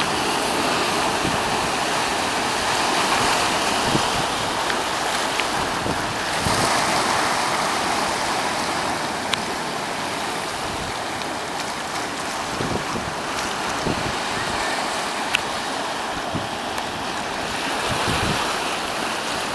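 Ocean surf washing steadily over rocks, with low rumbles of wind on the microphone.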